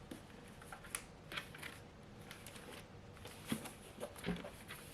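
Faint handling noises from the plastic-wrapped Cricut Joy cutting machine and its packaging: scattered light clicks and short plastic rustles, with two sharper knocks about three and a half and four and a quarter seconds in.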